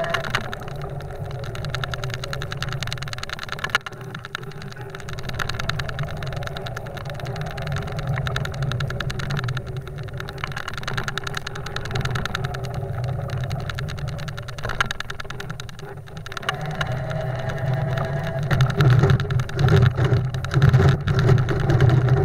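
A golf car's engine running under load as it pushes snow with a front-mounted plow blade. It grows louder and more uneven in the last few seconds.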